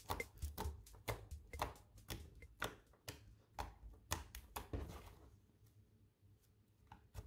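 Fingers poking and kneading soft flour-and-dish-soap slime, making a run of sticky clicks and pops, two or three a second, that fade out about five seconds in.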